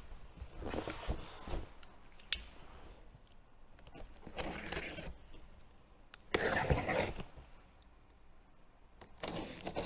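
A cardboard shipping box being opened by hand: several short rasping bursts of packing tape and cardboard scraping, the loudest about two-thirds of the way through, and one sharp click about two seconds in.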